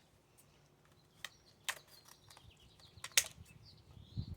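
Plastic wrapper of a baseball card pack being handled and opened: a few sharp crinkles and clicks, the loudest about three seconds in.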